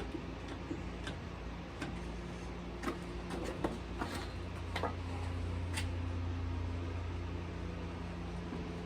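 Scattered light clicks and knocks of tools and wood being handled at a workbench, over a steady low hum that grows a little louder about halfway through.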